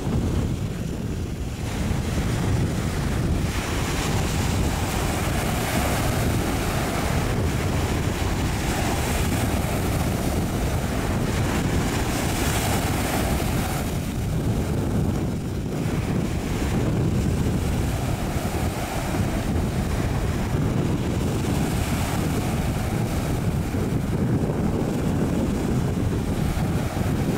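Steady wind rumble on the microphone over waves and the wash of a fishing trawler running past under power.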